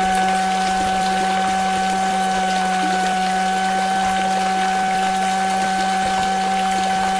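Small electric motor, as in a miniature water pump, running at a steady high whine with a low hum beneath, over the rush of moving water.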